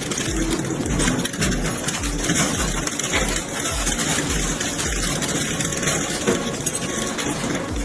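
Industrial shredder running under load: a dense, steady machine noise with a regular low pulse underneath.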